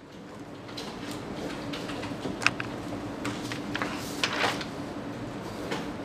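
Ballpoint pen scratching across loose sheets of paper, with papers shifting, over a steady low hum. The sharpest scrapes come about two and a half and four seconds in.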